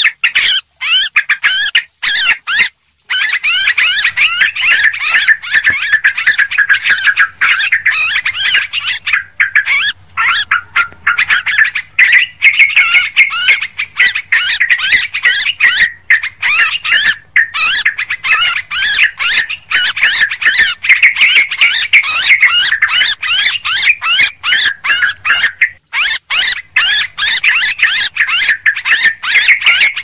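Yellow-vented bulbuls (cucak trucuk) calling in a busy flock, with dense bubbling chatter, many birds overlapping almost without a break. This is a bulbul lure call (suara pikat) meant to draw the birds in.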